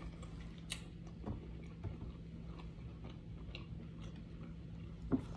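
Faint chewing of food: small wet mouth clicks scattered throughout, with a few sharper ones, over a steady low hum.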